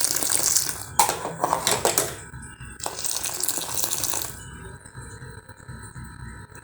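Masala milk tea splashing and bubbling in a pan on the stove, with a few clinks of a utensil against the pan. The splashing stops about four seconds in, leaving a quieter steady background.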